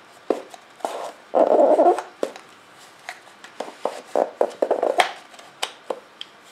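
Hands packing a folded drag chute into its small canister: irregular rustling of the chute fabric and light clicks and taps of handling, with a louder rustle about a second and a half in.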